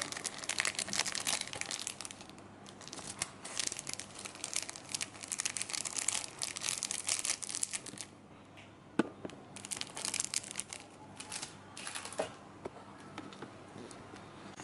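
Plastic instant-noodle seasoning sachets crinkling and tearing as they are opened and emptied over a plate of mi goreng, in bursts of crackling, with a single sharp tap about nine seconds in.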